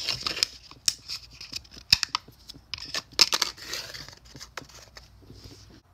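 Scratchy rustling and several sharp clicks as a small plastic roach bait station is handled and pressed down onto a vinyl floor. The sounds thin out toward the end.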